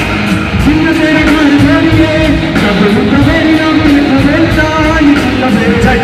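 A song playing loud: a singing voice over a steady, driving beat.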